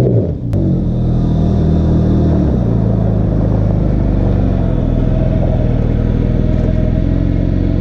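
Nissan Xterra SUV's engine running as the truck pulls off a loose dirt slope and drives across gravel, its note dropping about half a second in and shifting again about two and a half seconds in, with a short click at the first drop.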